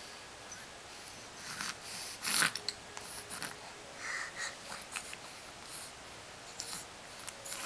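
A five-week-old baby's snuffly breathing and sniffs: a string of short, breathy noises, the loudest about two and a half seconds in.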